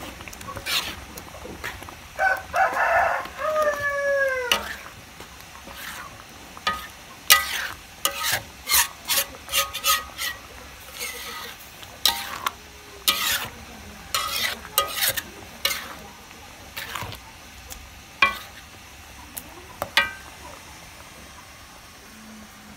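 A metal spoon stirring wet rice in an aluminium wok, scraping and knocking against the pan in a run of sharp clicks that thin out near the end. A rooster crows once, about two to four seconds in.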